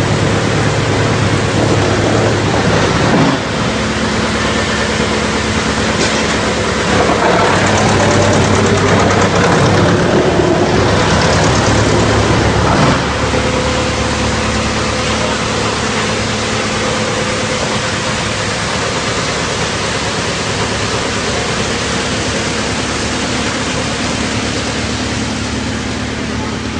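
Drum wood chipper running, a steady engine drone under dense mechanical noise, growing louder and rougher for several seconds in the middle before settling back.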